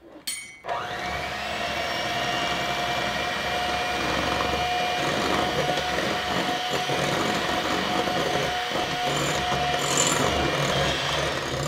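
Electric hand mixer switched on about half a second in and running steadily, its beaters whipping egg whites in a glass bowl, with one steady tone in the motor's hum. The whites are past frothy but not yet at soft peaks, with superfine sugar being added a spoonful at a time.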